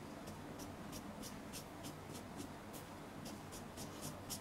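Felt-tip marker scratching on pattern paper in a quick run of short hatch strokes, about three a second, faint.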